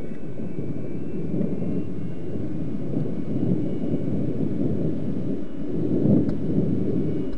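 A steady, low rumbling noise that cuts off suddenly at the end.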